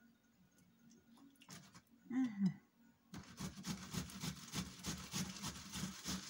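Fresh tomatoes rubbed hard against a metal box grater, a quick run of wet rasping strokes, several a second, that starts about three seconds in after a near-silent pause.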